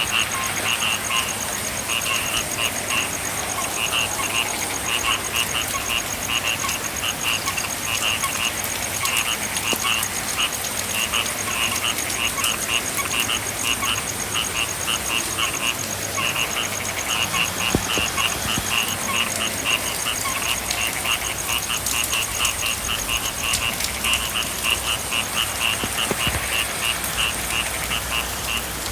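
A chorus of frogs calling in fast pulsed trills, run after run with short pauses between, over the steady hiss of light rain. A thin, steady high-pitched tone runs alongside.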